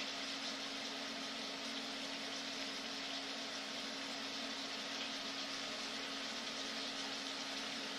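Diced chicken frying in an oiled skillet on an induction cooktop at high heat, browning, with a steady even sizzle. A steady low hum runs beneath it.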